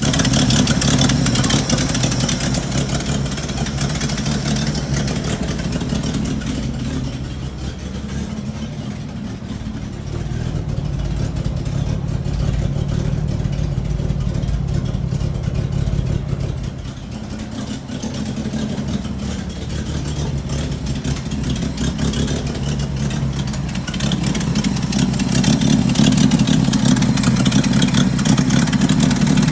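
1975 Bedford CJ truck engine running with a nasty exhaust leak. The engine note eases off in the middle and picks up again near the end.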